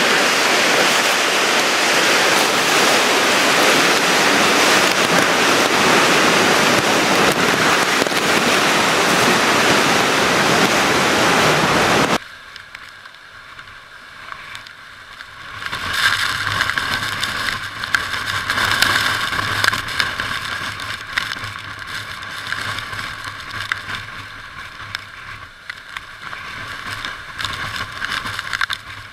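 Hurricane wind and rain, a loud steady rush. About twelve seconds in it cuts off suddenly to a quieter, thinner wind noise.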